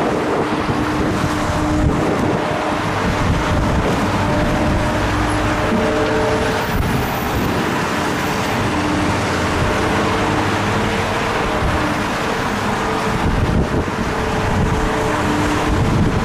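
Steady engine noise from demolition machinery, with wind rushing on the microphone over it.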